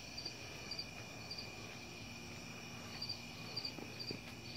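Crickets chirping in short high chirps of a few pulses each, repeating about every half second with a brief pause partway through, over a faint steady high tone.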